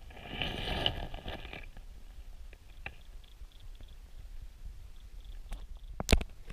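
Underwater river sound heard through a submerged camera: a low steady rumble of current, a noisy rush in the first second and a half, and a few sharp clicks later on, the loudest about six seconds in.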